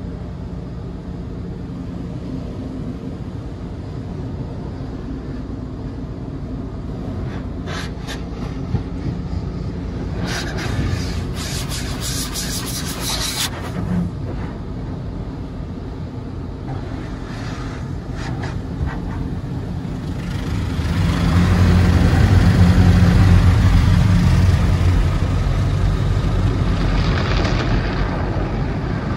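Tunnel car wash heard from inside the car's cabin: a steady low rumble, with hissing bursts of water spray about ten seconds in. From about twenty seconds in comes a louder stretch of water and wash equipment working over the car.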